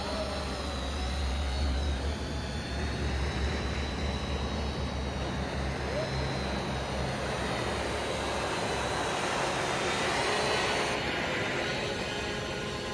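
Multirotor drone's propellers and motors whirring steadily in flight, with a low rumble of wind on the microphone through the first half. The whir swells and shifts in pitch about ten seconds in.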